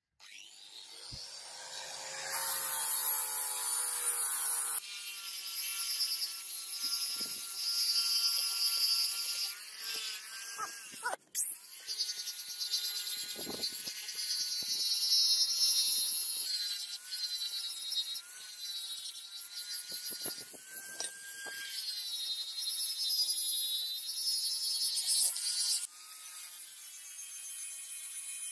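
Electric angle grinder with a thin cut-off disc cutting into a steel knife blade: a steady high motor whine over the hiss of the disc on the steel. The whine builds up in the first two seconds and sags in pitch whenever the disc bites harder, with a brief break about eleven seconds in.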